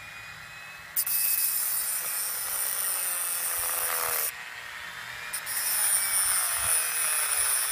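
Dremel rotary tool with a cut-off disc grinding through the head of a metal rivet on a shovel handle. The motor runs quietly at first. Then come two long bouts of harsh, high grinding, one from about a second in and one from about five seconds in, with the motor's pitch dropping as the disc bites.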